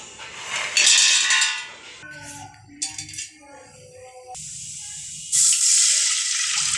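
Water poured into a hot steel pan of oil and whole spices, hissing loudly for about the last second and a half. Earlier, a loud noisy burst about a second in, and background music.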